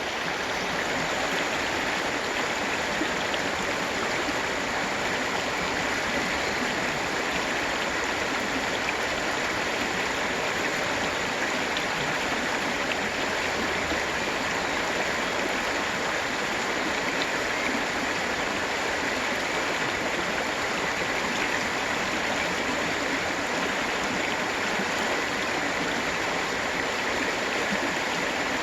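Water of the Prüm river rushing over the boulder rapids of a low waterfall cascade: a steady, even rush with no break or change.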